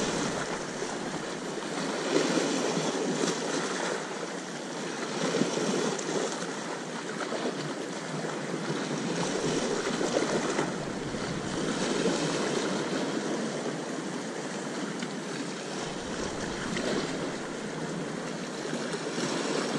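Sea surf washing on the shore, a steady rush of breaking waves that swells and eases every few seconds.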